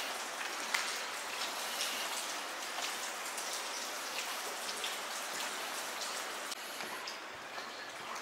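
Footsteps crunching and scuffing on wet gravel in a concrete tunnel, many small irregular ticks over a steady hiss.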